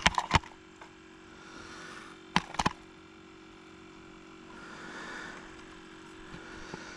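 Sharp plastic taps and knocks as a crappie is handled in a clear plastic fish-measuring board: a few right at the start and another two or three about two and a half seconds in, over a faint steady hum.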